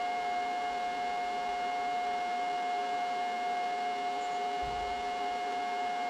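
A machine running steadily at constant speed: a high, unchanging whine over a noisy drone.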